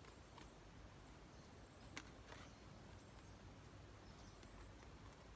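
Near silence: faint outdoor ambience with a few soft clicks, the clearest about two seconds in.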